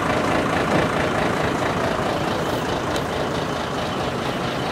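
Large truck diesel engine idling steadily.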